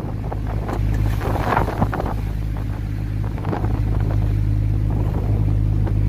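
A fishing boat's engine running with a steady low drone, mixed with wind noise on the microphone and the rush of a rough sea.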